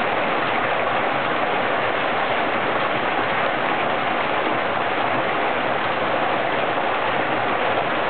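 Hot-spring water falling in several streams from a wooden chute and splashing into the bath pool below, a steady rush of water.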